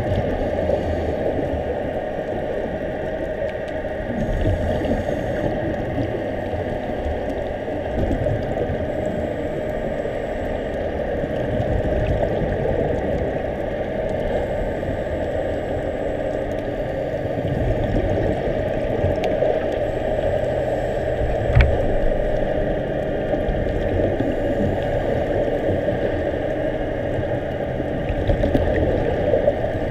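Muffled underwater ambience picked up through a camera housing: a steady hum and hiss, with low bubbly rumbles every few seconds and one sharp click about three-quarters of the way through.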